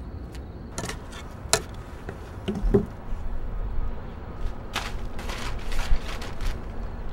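A run of short scraping strokes from a hand scraper against painted metal piping on a fireboat's deck, clustered in the second half, with a few sharp knocks earlier on.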